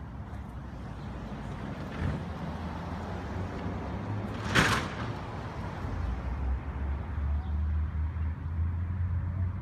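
Road traffic from the adjacent street: a vehicle's engine running low, growing louder over the second half, with a short, sharp hiss about halfway through.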